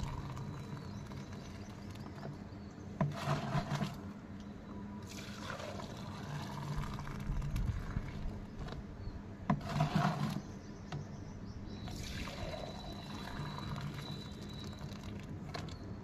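Fresh milk poured in a steady stream from a steel bucket into a steel measuring mug set in a plastic milk can, swelling a few times in level.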